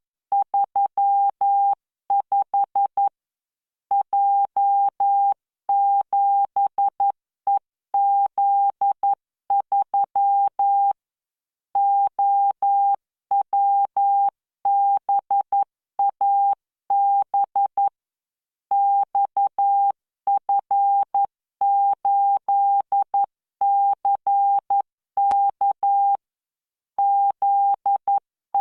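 Computer-generated Morse code practice tone from the Learning Morse training software: a steady mid-pitched beep keyed into dots and dashes at 11 words per minute, sent as groups of characters with short pauses between them.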